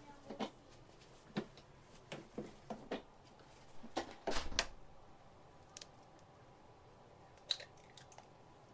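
Scattered sharp clicks and taps of eggshell and fingers against a mixing bowl, with a duller knock about halfway through. Near the end a sharp crack and small crackles follow as a raw egg is broken open over the bowl.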